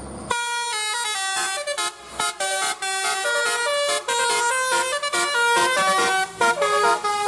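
A bus telolet horn, a set of electrically switched air-horn trumpets, plays a fast tune of short stepped notes. It starts about a third of a second in. This is the new telolet tune on a Putra Utama bus.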